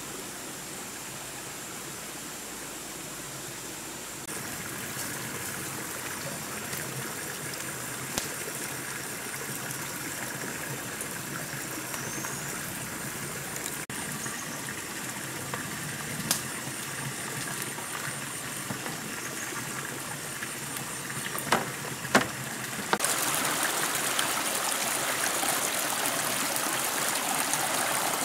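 Running stream water, a steady rushing with a few short knocks, growing louder and brighter for the last few seconds as the water flows over rocks close by.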